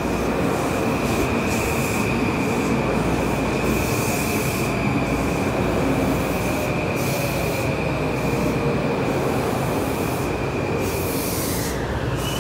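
Metro-North M8 electric multiple-unit train pulling into a station and slowing to a stop, with a steady high-pitched squeal over the rumble of the cars. The squeal dips slightly in pitch and fades out about a second before the end.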